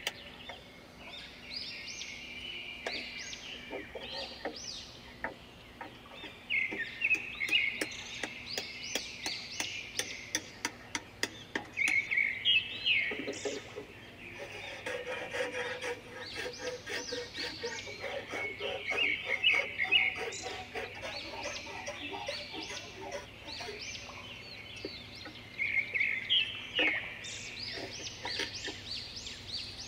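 Songbirds singing throughout in quick, rising chirps repeated over and over. A hammer knocks now and then on wooden boards, in a short cluster around the middle.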